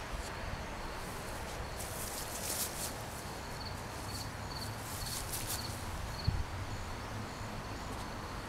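Outdoor ambience with an insect chirping in a string of short, evenly spaced pulses, a few rustles, and a single knock about six seconds in.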